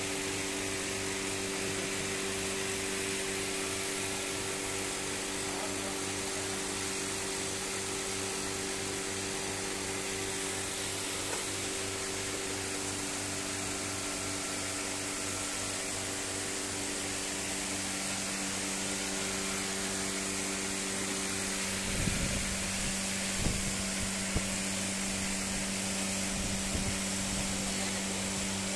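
Steady electric machinery hum with an even, buzzing pitch, with a few short knocks about three-quarters of the way through.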